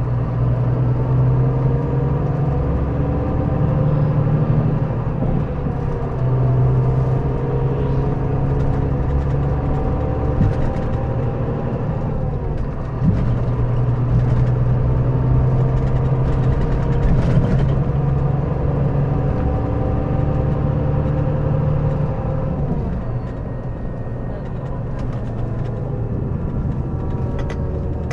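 Scania K400B coach's diesel engine running under load, its pitch climbing and dropping several times as the bus slows and picks up speed again.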